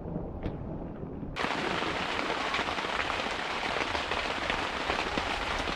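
Heavy rain falling, a dense steady patter of drops. For the first second and a half only a low rumble is heard, then the sound switches abruptly to the full, close rain.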